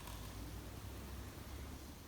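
Faint room tone: a steady low hum under a light hiss.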